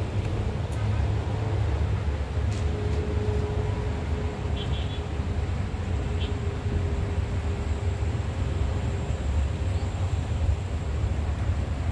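Wind buffeting the microphone, a steady low rumble, with a few brief high chirps near the middle.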